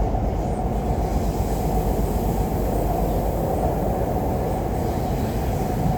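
MTR Tuen Ma Line C-Train electric multiple unit running at speed between stations: a steady rumble of wheels on rail and running gear, even throughout.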